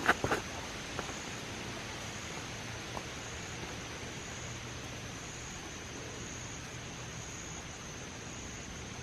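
Steady high-pitched chorus of insects droning in the woods, with a few sharp clicks or crunches just at the start.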